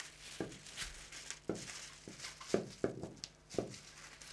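Scissors snipping through plastic release film: a series of about eight short, sharp cuts, each one brief.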